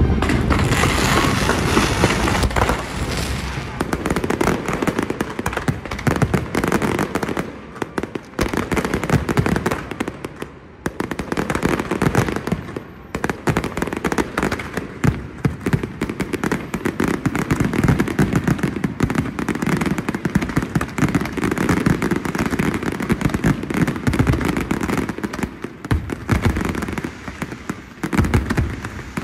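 Aerial fireworks going off in a rapid, unbroken barrage of bangs and crackles, with deep booms underneath, easing briefly twice before carrying on.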